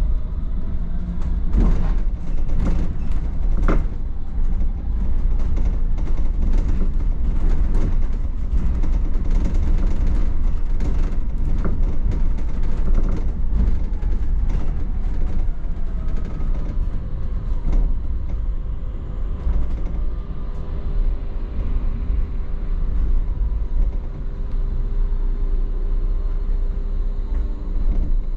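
Double-decker bus driving in city traffic, heard from the upper deck: a continuous low rumble with frequent clicks and rattles from the bodywork and fittings. A faint steady tone comes in about two-thirds of the way through.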